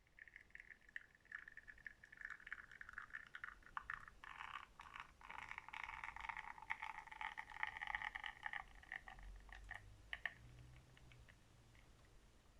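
Espresso spurting and sputtering from a La Pavoni lever machine's bottomless portafilter: a faint crackly hiss with small clicks that builds from about two seconds in and stops about ten seconds in.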